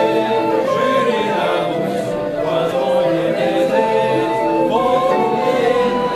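A small group of singers singing along to a hand-cranked barrel organ, its wooden pipes holding steady notes beneath the voices.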